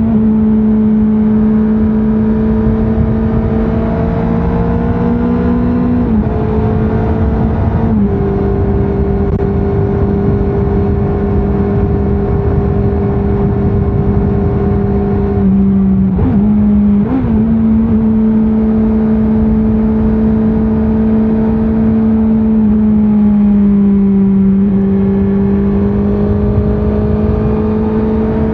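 2024 Honda CBR650R's inline-four engine on its stock exhaust, running at fairly steady revs while riding. Its pitch drops slightly a couple of times, dips and blips about two-thirds of the way through, and sags then climbs again near the end.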